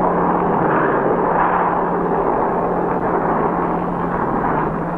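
Steady engine noise of a propeller airliner on an old film soundtrack, with a constant low hum under it, easing slightly near the end.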